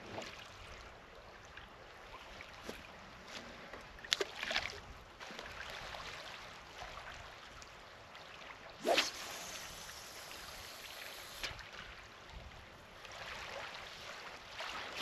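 Small waves lapping against shore rocks. About nine seconds in, a fishing rod swishes through a cast, followed by a brief hiss of line running off the reel.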